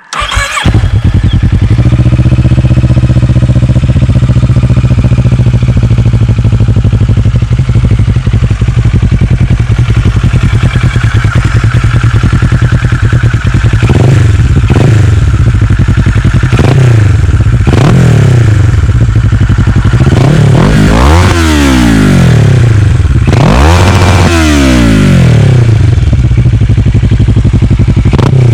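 Kawasaki ER-6n's parallel-twin engine through an open Akrapovic exhaust with the dB-killer removed, starting up and settling into a loud idle. From about halfway through it is revved several times, each rev rising and falling back to idle, the biggest two near the end.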